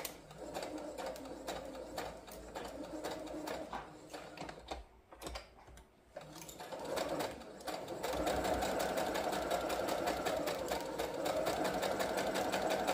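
Home sewing machine stitching a seam through layered quilt-block fabric, the needle working in rapid regular strokes. It runs unevenly at first with a short lull about five seconds in, then runs steadily and louder from about eight seconds in.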